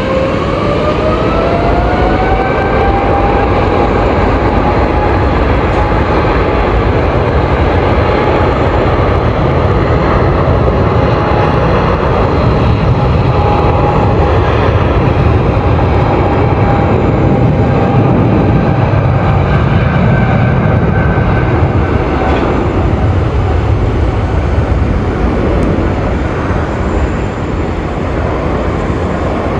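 Boeing 777-300ER's twin GE90 turbofans spooling up to takeoff thrust: a whine rising over the first few seconds, then steady, loud jet noise with the whine held, easing slightly near the end.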